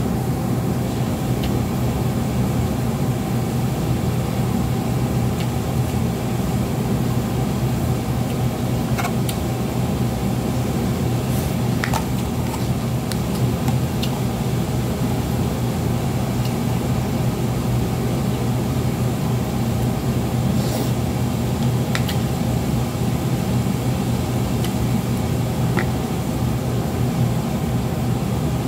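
A steady, loud hum from a running appliance fan, unchanging throughout, with a few faint small clicks and taps.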